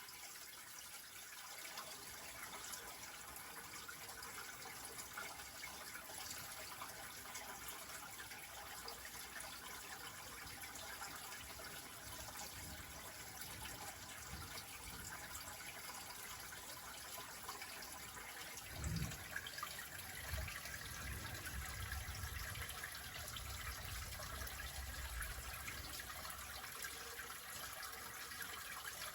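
Running water trickling and splashing steadily, as from a small forest stream. About two-thirds of the way through there is a short low thump, followed by several seconds of low rumbling.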